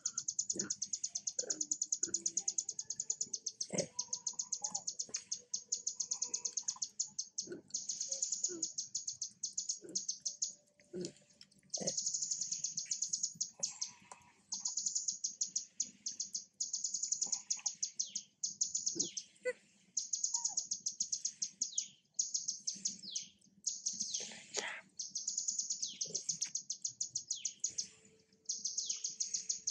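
Rapid, high-pitched chirping that pulses many times a second in runs of one to two seconds with short breaks, from an unseen animal, with faint scattered short squeaks and clicks lower down.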